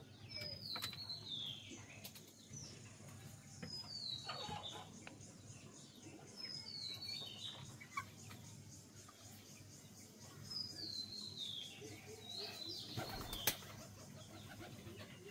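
Birds chirping: short high notes that fall in pitch, in small groups of two or three every few seconds, over a faint low hum. A short rustling clatter near the end is the loudest sound.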